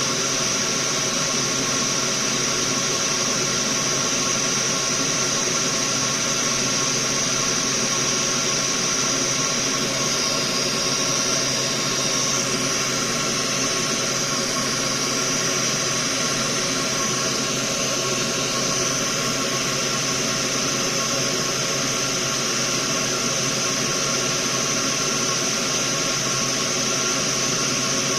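Steady machine noise, most likely a small fan such as a soldering fume extractor, running without change: an even hiss, strongest high up, with faint steady hum tones beneath.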